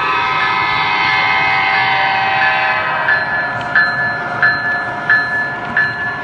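MTH SD9 O scale diesel locomotive's onboard sound system blowing a multi-tone diesel horn, which fades out about three seconds in. Its bell then rings about one and a half strokes a second, over the rumble of the train running on the track.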